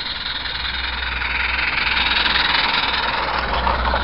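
Steam hissing steadily from a 16mm-scale live steam locomotive, swelling in the middle, with a steady low hum beneath it.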